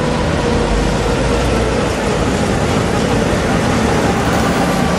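Two-car Tatra T3 tram running past close by on its rails: a loud, steady rumble and rush of noise with a faint steady hum.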